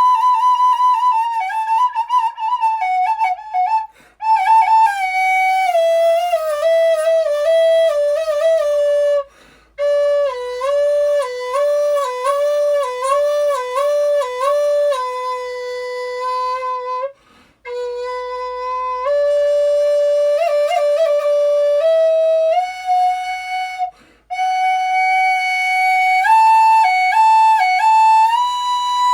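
High Spirits Native American flute in the key of B, tuned to 432 Hz, played solo: a slow melody in phrases with quick fluttering ornaments between notes and four short breaks for breath.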